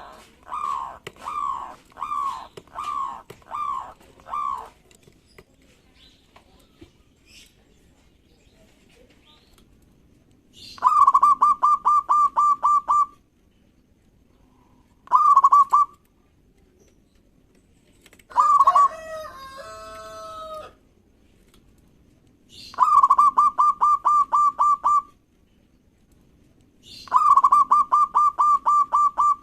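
Zebra doves (perkutut) calling. A run of falling coos opens the clip. After a quiet spell come bursts of fast repeated cooing notes every few seconds, and one longer call of a different shape near the middle.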